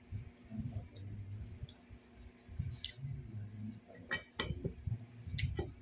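Someone eating by hand from a plate: soft low handling sounds with a few sharp clicks and clinks, one about three seconds in and several more near the end.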